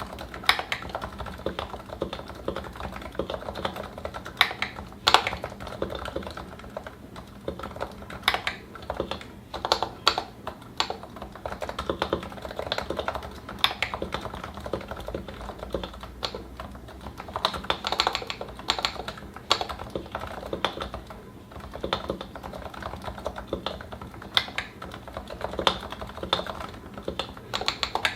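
Continuous typing on a Realforce 87u Topre electrostatic-capacitive keyboard with lubed 55 g switches and GMK keycaps: a dense, uneven patter of soft keystrokes with a few louder strokes, likely the space bar or larger keys, standing out.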